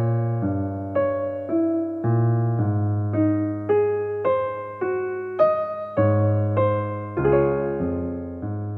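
Background piano music: single notes struck at an even pace of about two a second, each ringing and decaying, over a low sustained bass line.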